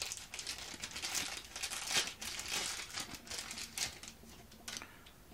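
Thin clear plastic bag crinkling and rustling as a coiled cable is pulled out of it, a dense run of crackles that dies away about four seconds in, followed by a single light click.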